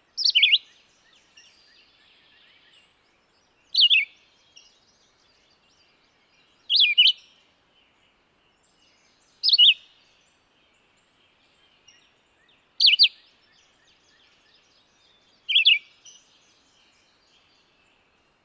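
Red-eyed vireo singing short, separate whistled phrases, about one every three seconds, with pauses between them.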